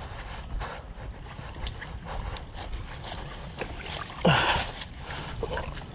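Water sloshing and splashing around a dirt bike stuck in water as it is pushed and pulled, with a short, loud grunt of effort about four seconds in.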